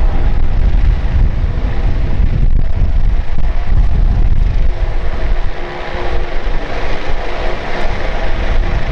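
Embraer ERJ-175's twin GE CF34-8E turbofan engines running at high power during the take-off roll. It is a loud, steady jet rumble with a faint steady whine over it.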